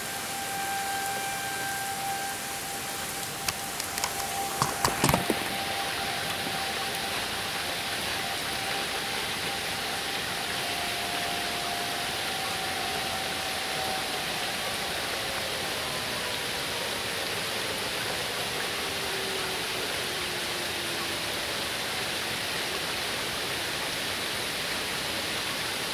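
Steady rain hiss with distant Federal Signal 2001-series tornado sirens holding a faint steady tone, then winding down in a long falling pitch from about halfway through: the sirens reaching the end of their cycle. A quick cluster of sharp clicks comes about four to five seconds in.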